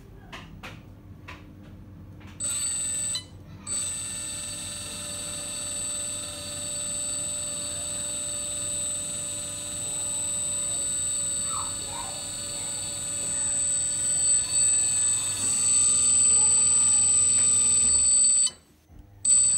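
RC truck's electronic engine-sound unit playing a truck engine running steadily through a small speaker, with a constant high whine over it. It begins about two seconds in, grows louder and shifts in tone near the end, then cuts off suddenly.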